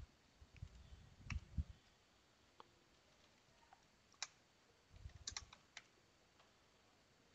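Faint, scattered clicks of a computer keyboard and mouse: single keystrokes and clicks spread irregularly, with a short cluster of clicks about five seconds in.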